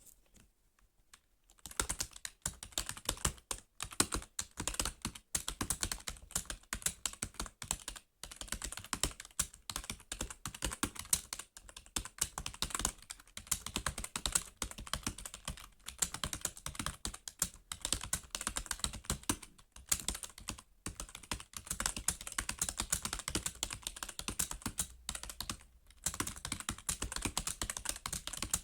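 Fast, continuous typing on a computer keyboard, keys clicking many times a second with a few short pauses; it begins nearly two seconds in.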